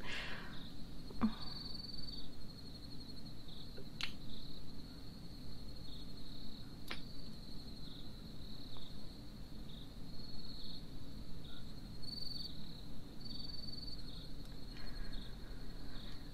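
Crickets chirping steadily: a high, continuous chirring with short pulses about once a second and occasional longer trills, over a low steady background rumble. Two faint clicks sound about four and seven seconds in.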